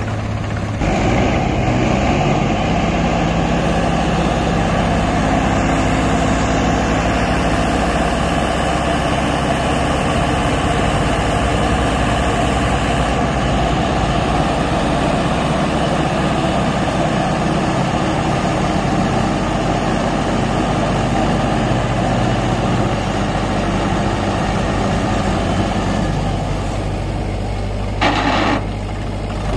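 Mahindra 595 DI Turbo tractor's diesel engine running steadily, picking up revs about a second in while it works the hydraulics that tip the loaded trolley. A brief burst of noise comes near the end.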